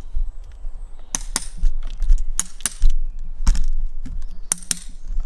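Handling noise as the recording camera is picked up and moved: a run of sharp clicks and knocks, about a dozen over a few seconds, over a low rumble.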